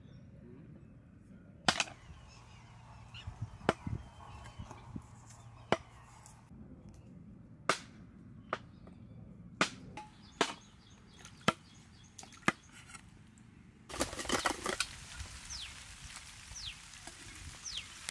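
A large curved iron blade chopping raw mutton on a wooden board: single sharp chops at uneven gaps of one to two seconds. About three-quarters through comes a quick run of clattering knocks, then a steady hiss with several short falling bird chirps.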